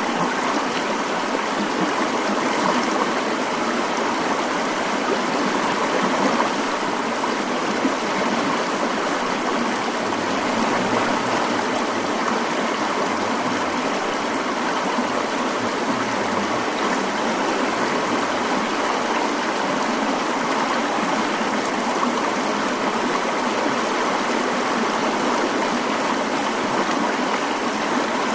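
Mountain stream flowing in a steady, even rush of water.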